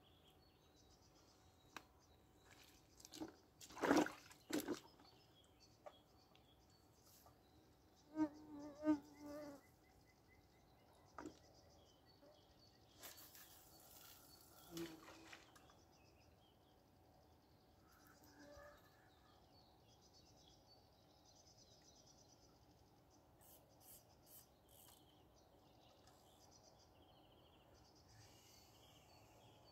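Quiet pond-bank background with a faint insect buzz, broken by a few short handling noises: a sharp knock about four seconds in, a short stuttering pitched call or rattle around eight to nine seconds, and a brief hiss around thirteen seconds as the float rod is cast again.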